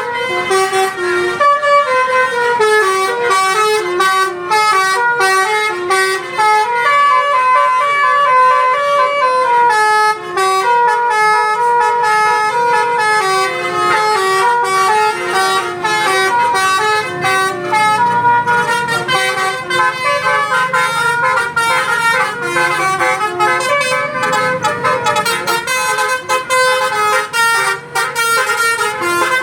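A multi-tone "telolet" bus horn playing a melody, with short pitched notes stepping quickly up and down one after another.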